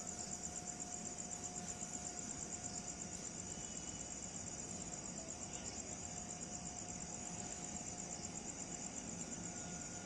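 Crickets chirring in a fast, even pulse, with a faint steady tone underneath.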